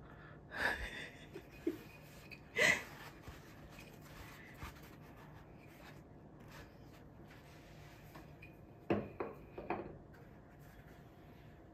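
Handling noises from a wooden paper towel holder and its roll: a few short knocks and rustles, the loudest near three seconds in, and another small cluster of taps near nine seconds.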